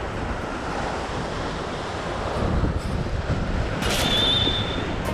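Strong wind buffeting the microphone over the wash of rough surf, with a brief high tone about four seconds in.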